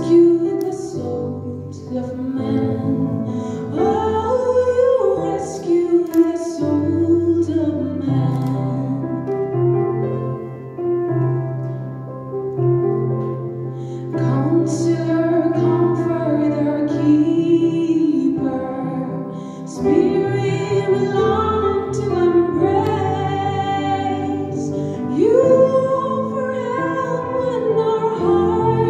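A woman singing a sacred song solo into a microphone over a sustained instrumental accompaniment, the voice rising and holding long notes above steady low bass tones.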